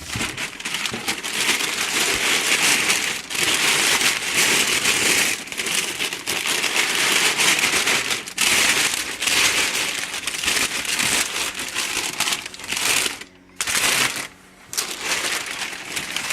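Packaging being crinkled and pulled away as a rifle is unwrapped from its shipping box, a continuous rustling crackle that pauses twice near the end.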